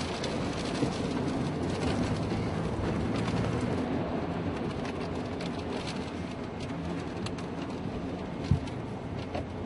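Steady roar of wind from a nearby tornado, with a single sharp knock near the end.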